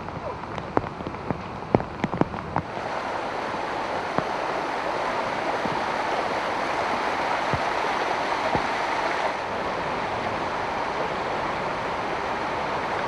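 Fast-flowing floodwater rushing: a steady, even rushing noise. In the first few seconds there are scattered sharp crackles instead, and the rushing starts abruptly about three seconds in.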